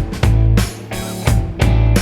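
Rock music with electric guitar, heavy sustained bass notes and drum hits in a steady beat.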